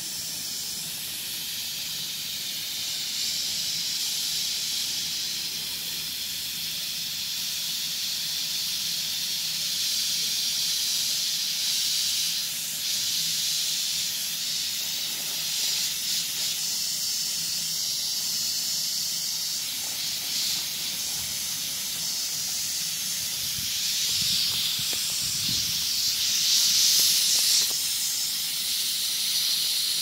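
A jet of water from a garden hose's pistol-grip spray nozzle hissing steadily as it spatters onto bare soil and vegetable beds. It is a little louder near the end.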